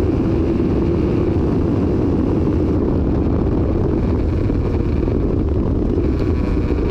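Suzuki SV650 V-twin motorcycle riding along a road, recorded by a GoPro's built-in microphone: steady, heavy wind noise on the microphone largely drowns out the muffled engine.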